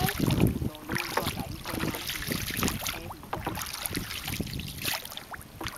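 Water splashing and sloshing around a small boat moving through shallow, choppy water, in irregular splashes, with wind buffeting the microphone.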